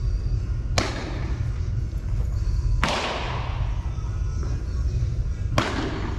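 A ball striking hard three times, about two and a half seconds apart, each sharp thud ringing out briefly in the room, over a steady low rumble.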